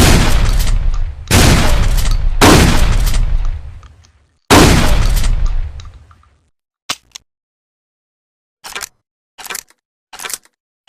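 Trench shotgun sound effect: four loud shots roughly a second apart, each with a long fading tail. After them come a short double click and then short, quieter mechanical clacks about every three-quarters of a second, like the gun being worked or loaded.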